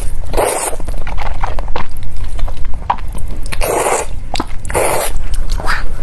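Three loud slurps of noodles being sucked up off chopsticks into the mouth, each about half a second long. Between them come wet chewing and small clicks.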